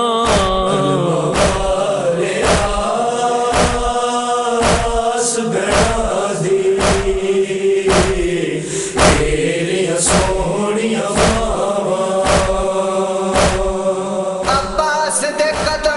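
Noha: male voices chanting a drawn-out refrain together in a lament melody, over a steady matam beat of hands striking chests about once a second.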